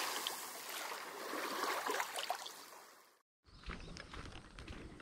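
Intro sound effect: a swell of hissing noise, loudest at the start, that fades away over about three seconds and stops. After a brief silence, faint low thuds of footsteps on a dirt path begin.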